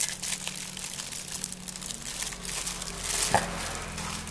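Plastic bag packaging crinkling and rustling as a router's power adapter and accessories are handled and lifted out of their cardboard box, with one sharper click or knock about three seconds in.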